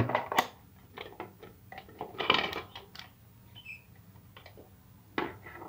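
Scattered light clicks and taps from handling a digital multimeter and the bare lead wires of a horn speaker's newly fitted voice coil, ready for a resistance check.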